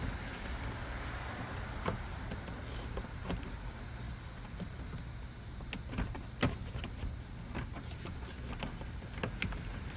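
Scattered sharp clicks and knocks from handling the plastic lower bumper trim while lining it up against the bumper, over a steady low rumble.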